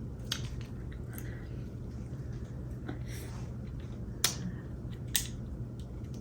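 Eating sounds from a seafood boil: wet squishing with three sharp clicks, the loudest about four seconds in.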